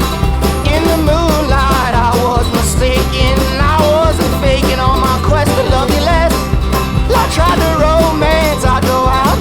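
Background music: an upbeat song with a steady beat and a sung vocal line that comes in about a second in.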